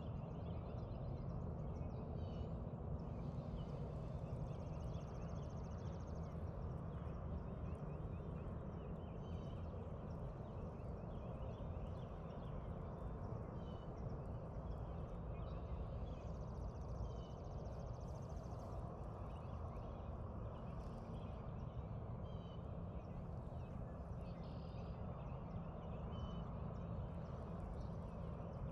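Outdoor ambience: a steady low rumble with small birds chirping now and then, and two short, fast high trills.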